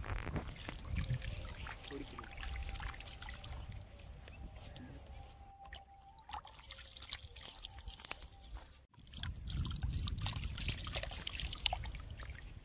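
Shallow pond water splashing and trickling as a hand moves in it and a fish thrashes in the shallows, with many small scattered splashes over a low steady rumble.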